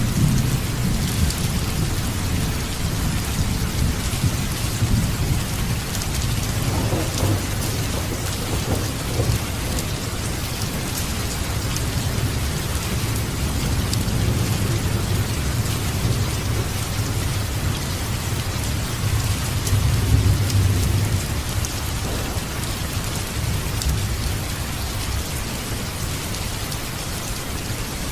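Steady heavy rain with low rolling thunder underneath, the rumble swelling about two-thirds of the way through.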